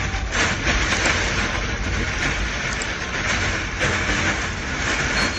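Hailstorm: a dense, steady clatter of hailstones striking hard surfaces, with wind rushing on the microphone.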